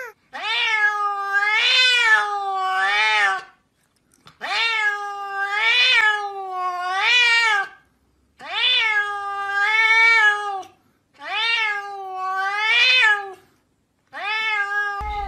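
Domestic cat meowing in five long, drawn-out calls, each wavering up and down in pitch several times, with short pauses between; the last call is cut off.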